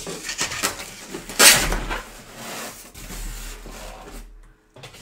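Styrofoam packing blocks rubbing and scraping against a cardboard box as they are pulled out, with the loudest scrape about a second and a half in.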